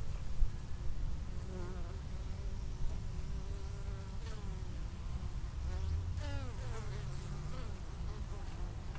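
Honey bees buzzing close by at a hive entrance as pollen-laden foragers fly in and out, the hum of their wings bending up and down in pitch as individual bees pass, over a low rumble.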